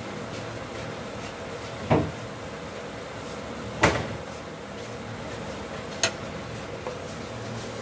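Steady hum of an induction cooktop running under a kadai of frying masala, broken by three sharp metal clanks about two seconds apart. The last clank comes as the steel spoon is lifted from the pan.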